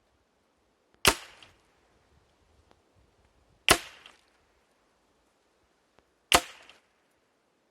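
Three single shots from a Ruger 10/22 semi-automatic .22 LR rifle, each a sharp crack with a brief trailing echo, fired about two and a half seconds apart.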